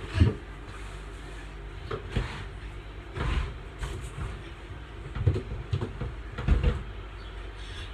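Dull thumps and bumps with some rustling as someone rummages around a bed, shoving pillows and reaching down beside it. There are about five knocks; the loudest comes right at the start.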